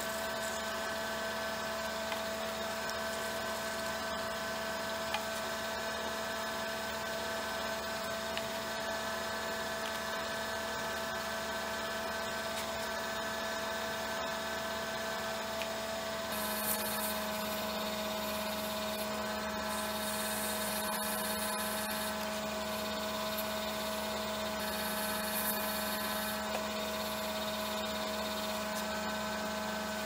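Nova Galaxi DVR wood lathe running at slow speed: a steady motor hum with a few fixed whining tones, which shift slightly about halfway through.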